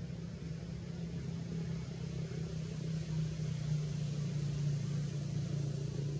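A steady low hum of a running engine, unbroken and without clear changes.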